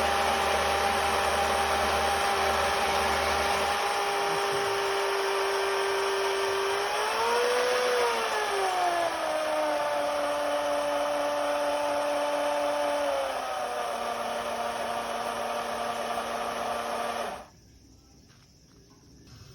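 Electrified chainsaw driver's electric motor running with a steady whine. The pitch rises briefly about seven seconds in, then drops in two steps, and the motor cuts off suddenly near the end.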